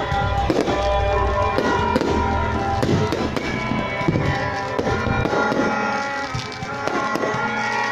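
Fireworks going off in quick succession, many bangs and crackles through the whole stretch, over music with held notes.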